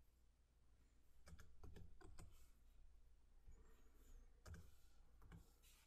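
Faint computer keyboard and mouse clicks: scattered single taps spread through the few seconds, as numbers are typed into a spreadsheet dialog.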